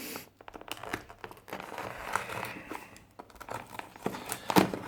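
Packaging crinkling and rustling as it is handled, with many small clicks and a sharper knock near the end.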